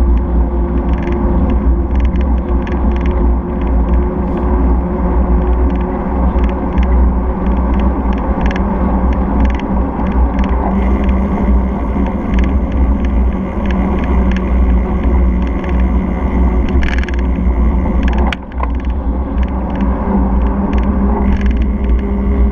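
Wind and road noise picked up by a camera mounted on a moving bicycle: a steady low rumble from the tyres on asphalt and the wind, with frequent small rattles and clicks from the mount.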